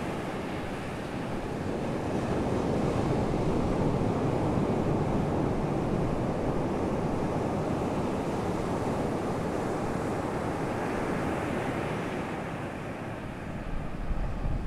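Underwater water noise picked up by a GoPro submerged in its waterproof housing: a steady, muffled rushing hiss and rumble. It swells a couple of seconds in and eases off near the end.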